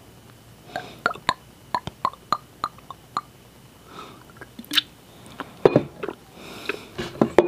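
Close-miked gulping from a glass bottle: a run of quick swallows, about three a second, followed by a few louder sharp mouth clicks and a breath out near the end.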